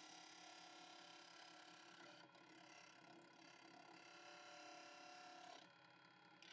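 Faint, steady hum of a small wood lathe running while a hooked scraper cuts inside a wooden ring blank's center hole, enlarging the bore. The sound steps up at the start and drops back a little near the end.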